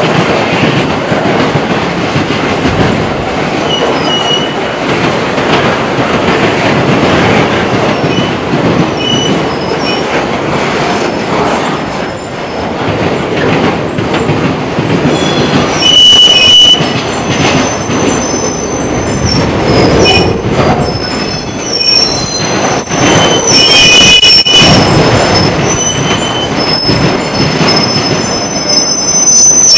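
Freight train cars rolling past at close range, a steady rumble and clatter of wheels on rail, with high-pitched wheel squeals that come and go and grow more frequent in the second half.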